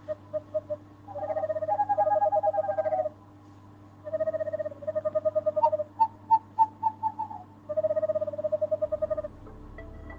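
Bursts of rapid trilling tones, each a second or two long with short gaps, over a steady low hum. This is the film's eerie score or sound design. Near the end the trills break into separate beeps, about three a second.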